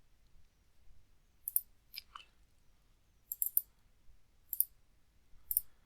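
Computer mouse clicking: a handful of short, sharp clicks spread out over a few seconds, some in quick pairs.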